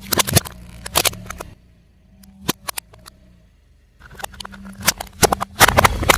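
Car tyre rolling over and crushing brittle objects: bursts of sharp cracks and crackling, the loudest near the end.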